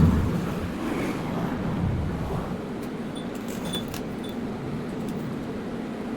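Steady buzz of an AC TIG welding arc on aluminum, with a thump at the very start.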